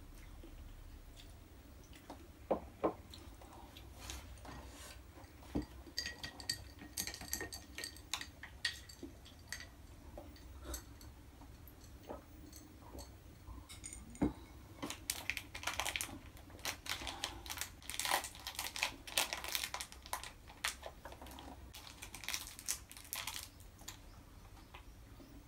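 Small ceramic cup and dishes set down on a desk with light knocks and clicks, then crunchy chewing of a mini pizza close by, crackling in quick runs through the second half.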